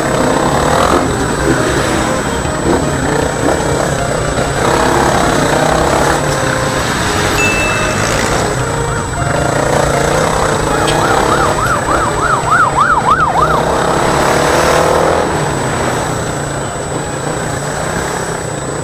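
Yamaha Sniper 150's single-cylinder four-stroke engine running at low speed amid traffic noise while riding through traffic. About eleven seconds in, a rapid warbling siren yelps for a couple of seconds.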